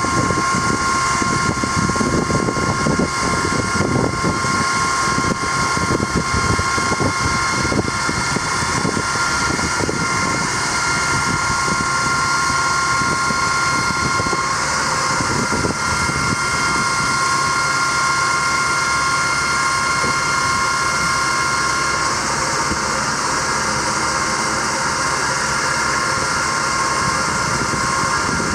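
6.6 L Duramax diesel running steadily with the PTO engaged, with a steady whine of several tones from the PTO-driven hydraulic pump working the aerial boom. The whine shifts about halfway through and again about three-quarters of the way through.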